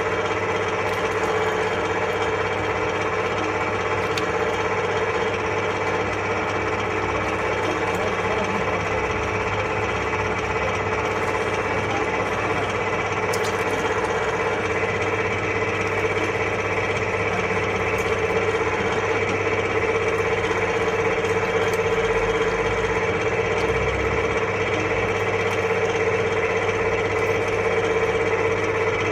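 Frozen-meat grinder running steadily: a constant machine hum with a strong steady tone, and a faint click or two.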